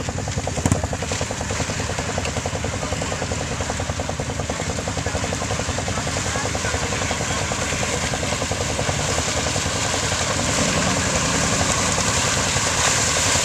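Argo 6x6 amphibious vehicle's engine running steadily as it crawls through the mud hole on its tracks, getting louder from about nine seconds in as it comes closer. A brief knock just under a second in.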